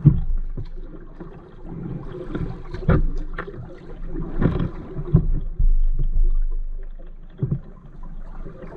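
Kayak on the water: splashing and sloshing with several irregular knocks and thumps against the hull, and a low rumble partway through.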